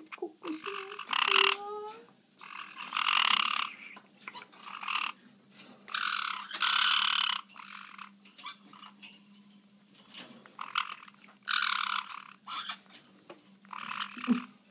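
Black-headed caique giving harsh, raspy squawks, several in a row, each lasting up to about a second.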